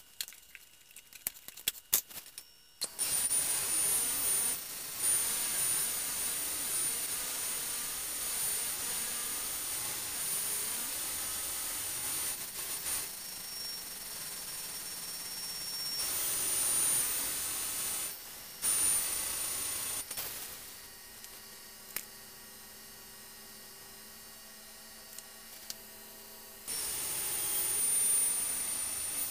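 Electric potter's wheel starting up about three seconds in, after a few light clicks. It runs with a steady high whine and the hiss of wet clay turning under the hands as a small cup is opened. For several seconds near the end it runs quieter, then gets louder again.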